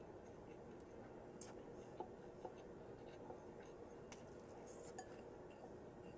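A few light clicks of eating utensils against dishware, spaced a second or two apart over a low steady background hum.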